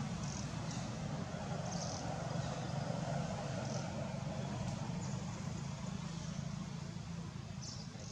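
Steady low rumble with hiss, with a few short, faint high chirps scattered through it.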